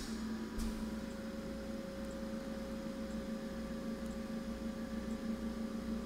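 Steady electrical hum with a faint hiss, and a couple of faint clicks in the first second.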